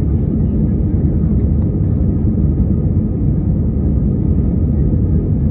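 Commercial jet airliner's engines and rushing air, a steady loud low rumble heard from inside the passenger cabin.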